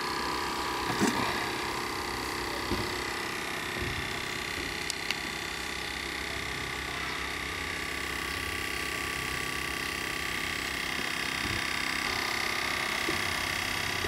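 Small electric motor running steadily: a low hum with several steady whining tones. A plastic click about a second in, as the rice cooker lid is handled, and a couple of light ticks around five seconds in.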